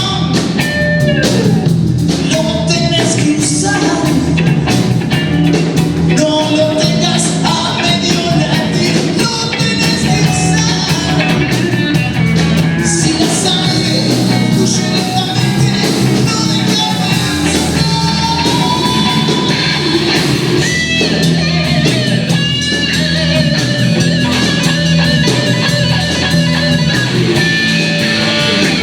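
Blues-rock band playing live: electric guitar, bass and drums, with a singing voice.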